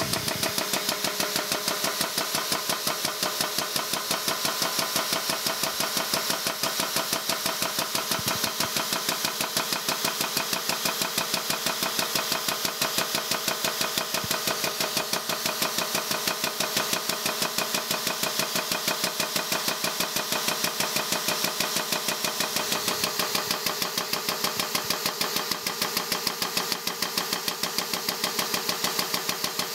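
A 20-ton air-over-hydraulic bottle jack's air-driven pump runs in a rapid, even pulsing as the press ram pushes a cold, stuck shaft out of a cast-iron flat belt pulley hub.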